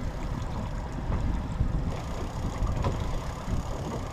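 Low, steady rumble of wind buffeting the microphone on an open boat, with the wash of water and a few faint ticks.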